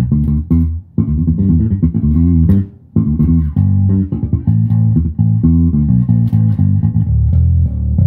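Dingwall Z1 five-string fretless bass with FD3 pickups and a Glockenklang preamp, played fingerstyle in a run of notes with some sliding pitches and short breaks about one and three seconds in. The tone is set with the mids and highs boosted.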